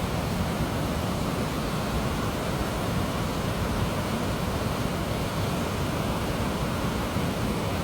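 Steady rushing of a mountain stream in a rocky valley, an even hiss with no breaks.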